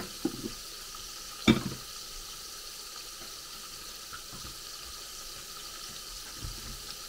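Battered prawns deep-frying in a pan of hot oil: a steady, even sizzle. A single knock sounds about a second and a half in.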